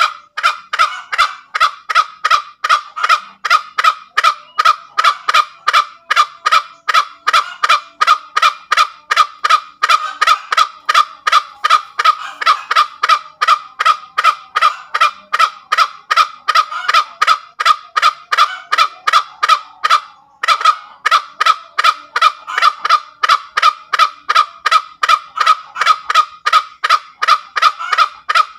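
Green junglefowl giving its rapid, repeated 'kek-kek' cackle (ngekek), short sharp calls at an even pace of about three a second, with one brief break about twenty seconds in.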